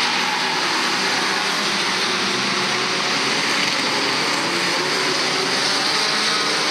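A field of stock cars racing around an oval, their engines running together as one steady blended engine noise, with no single car standing out.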